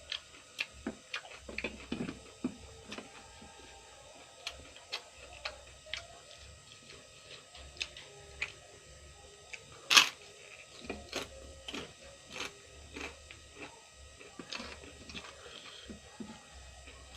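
Close-up chewing of raw vegetables: irregular crisp crunches and wet mouth clicks, with one loud sharp crunch about ten seconds in.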